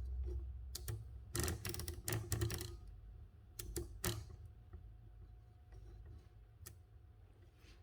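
Seidel & Naumann Erika folding typewriter's mechanism being worked by hand: a quick run of clicks and rattles about a second and a half in, then a few single clicks spaced apart.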